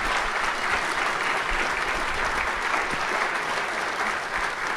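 Audience applause: many people clapping steadily, with no break.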